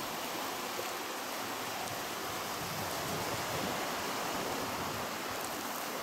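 Soapy water sloshing and squelching in a plastic bucket as a knitted wool piece is squeezed and rubbed by hand to felt it; a steady, even wash of sound.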